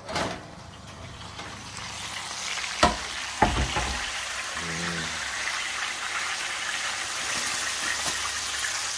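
Hot duck fat and juices sizzling in a roasting tray fresh from the oven: a steady crackling hiss that builds over the first couple of seconds, with two sharp knocks about three seconds in.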